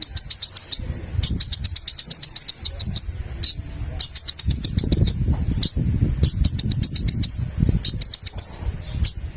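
Little spiderhunter (sogok ontong) singing in a steady string of quick, high, sharp chip trills, each lasting about half a second to a second with short breaks between them. A low rumble runs underneath, heaviest through the second half.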